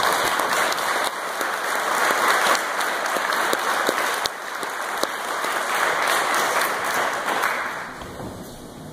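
Audience applauding, a dense crackle of many hands that fades out near the end.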